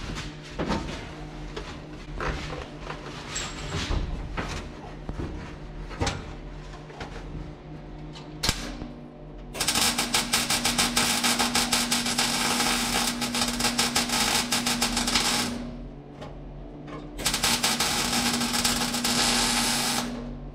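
MIG welder laying rosette (plug) welds in the sheet-steel floor pan of a 1958 VW Beetle: two runs of steady arc crackle with a hum under them, the first about ten seconds in and lasting some six seconds, the second shorter, near the end. Before that come scattered light taps and clicks of the torch and metal being positioned.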